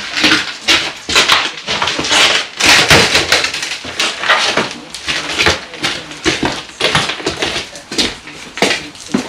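Dense, irregular clatter and knocks of broken bricks, concrete blocks and rubble being picked up, stacked and dropped during debris clearing after a wall demolition.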